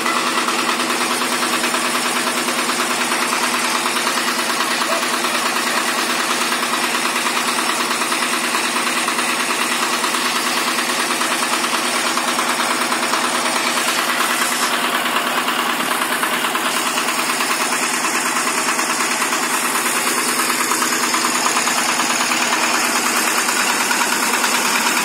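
Single-cylinder diesel engine of a Kentavr MB 1012-5 walk-behind tractor idling steadily at a constant speed, being run in while new.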